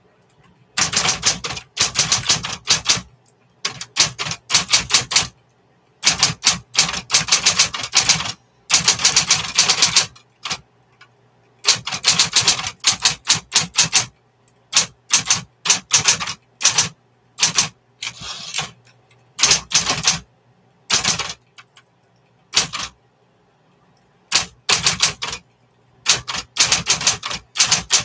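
1960s Smith Corona Coronet Electric typewriter being typed on: rapid clatter of key strikes in bursts of a second or two, with short pauses between, over a faint steady low hum.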